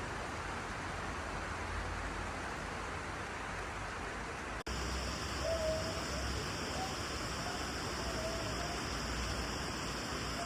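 Steady hiss of rain outdoors. About halfway through the ambience changes abruptly, as at an edit, and a few short, faint pitched calls follow.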